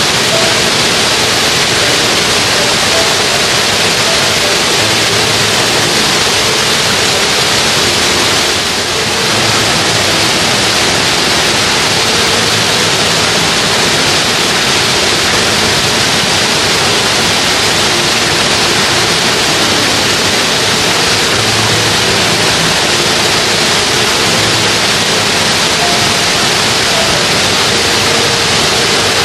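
Mountain stream rushing: a loud, steady wash of water that dips slightly for a moment about nine seconds in.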